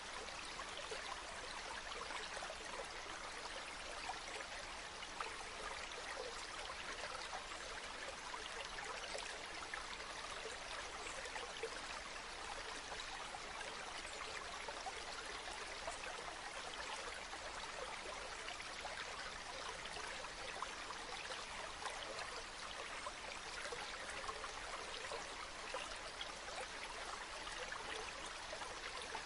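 River water flowing steadily: an even rush of water with many small splashes and trickles, unchanging throughout.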